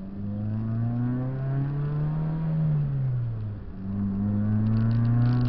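Toyota 4AGE 16-valve twin-cam four-cylinder engine, with a stainless steel header and 2.25-inch exhaust, accelerating under load as heard from inside the cabin. The revs climb, fall away for about a second around a gear change roughly three seconds in, then climb steadily again.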